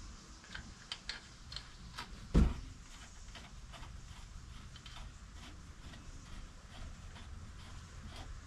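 Light metallic clicks and taps of gears and an axle being fitted by hand into a scooter's transmission case, with one heavy thump about two and a half seconds in.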